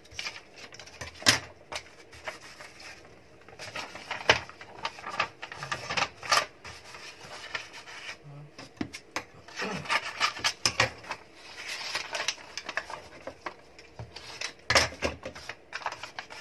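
Wrapping paper rustling and crackling as it is folded and pressed down around a small box, in uneven bursts with sharp crinkles now and then.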